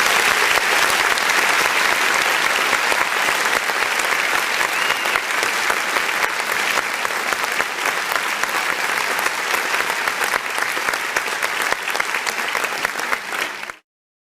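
A large crowd applauding, dense steady clapping that eases slightly and then cuts off abruptly near the end.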